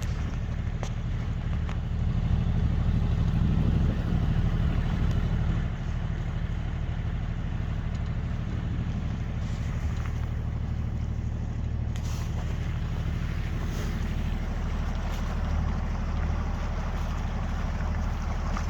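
Yacht's engine running steadily as the boat moves slowly through the water, with wind and water noise.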